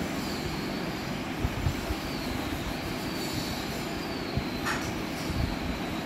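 Gas stove burner running under a kadai: a steady low rushing noise, with a faint wavering high whistle and one short click near the end.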